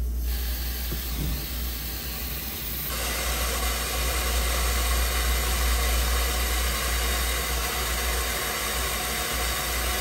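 Hot water under mains pressure rushing out of a water heater's brass drain valve into a plastic bucket, a steady hiss that grows louder about three seconds in as the flow builds. The tank is being flushed to clear sediment from its bottom.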